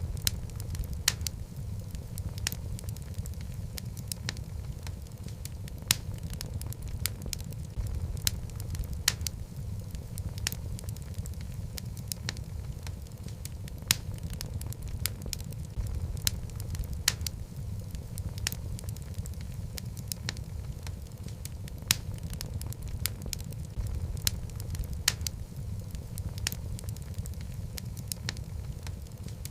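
Wood fire of burning logs in a fireplace: a steady low rumble of flames with sharp, irregular crackles and pops several times a second, a few of them louder snaps.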